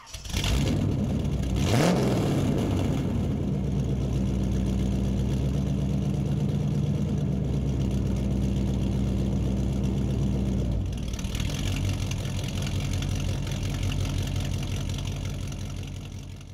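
Car engine revving once about two seconds in, then idling steadily. The sound changes about eleven seconds in and fades out near the end.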